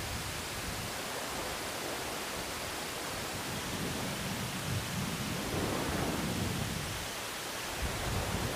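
Steady rushing noise of sea surf washing against the concrete tetrapods of a breakwater, a little louder about halfway through.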